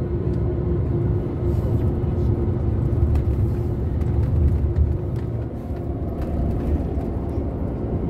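Coach bus driving, heard from inside the passenger cabin: a steady low rumble of engine and road noise with a faint steady hum that weakens about halfway through.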